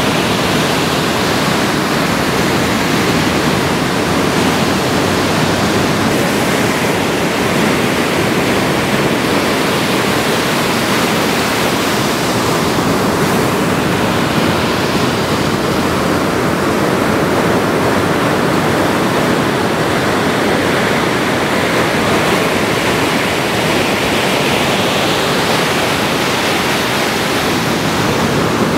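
Ocean surf: a loud, steady rush of waves breaking and washing in.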